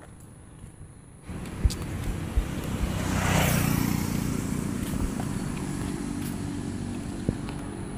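A motorcycle passes close by, its engine and tyre noise swelling to a peak about three and a half seconds in and then fading as it rides away. A couple of sharp thumps come just before it.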